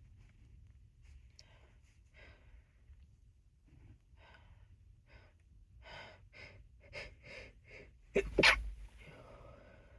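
A person's breathy in-breaths quickening into gasps, then a sharp sneeze about eight seconds in, the loudest sound, followed by an out-breath.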